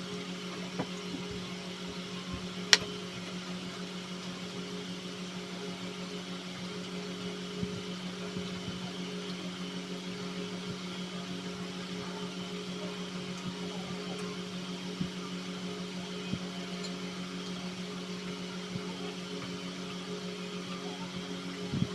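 A steady low machine hum, like a fan or appliance running, with one sharp click about three seconds in.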